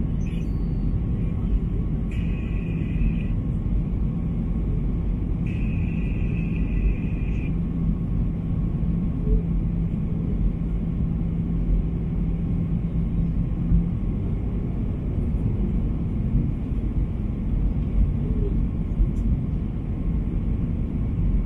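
Steady airliner cabin noise on the approach to land: a deep rumble of the jet engines and airflow, with a low hum that drops out about two-thirds of the way through. Two brief higher-pitched sounds come early on.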